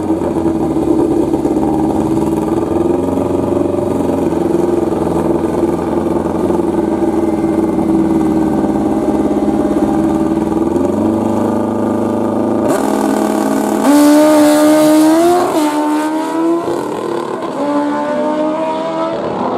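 Two drag-racing motorcycles running steadily at the start line, then launching about 13 seconds in. The engines get loud as they accelerate away, their pitch climbing and dropping back with each of several upshifts.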